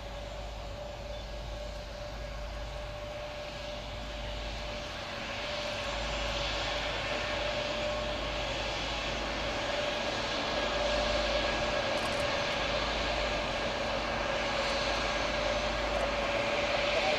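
Kawasaki P-1 jet engines running on the ground: a steady whine over a jet rush that grows gradually louder.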